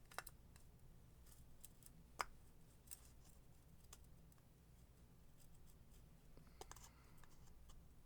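Faint, scattered clicks and scratches of a pick working at a stiff O-ring seated in a plastic shower head swivel housing, with one sharper click about two seconds in and a few more near the end.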